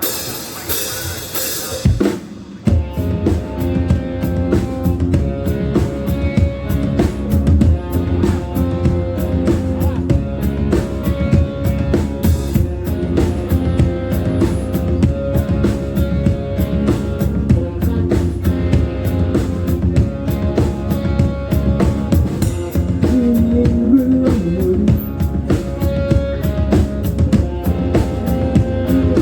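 Loud music with a drum-kit beat and strong bass, played over a sound system during a sound check. It starts about two seconds in, after a short burst of hiss.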